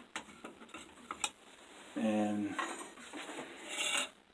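Pieces of quarter-inch steel plate and pipe clinking and knocking together as they are handled, a scatter of sharp metal clicks with one louder knock about a second in.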